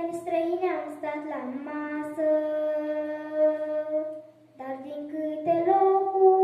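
A young girl singing a folk song solo into a microphone, holding one long note for about two seconds, then pausing briefly for breath before starting the next phrase.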